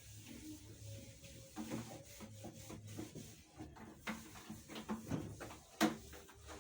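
Cloth wiping and rubbing inside a refrigerator, with scattered light knocks and one sharper click near the end.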